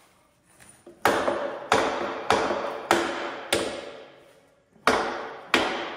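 Hammer blows on the steel hub and clamps of a truck trailer's spoke wheel, knocking the wheel clamps loose. Each blow rings metallically. Five come about half a second apart starting about a second in, then after a pause two more near the end.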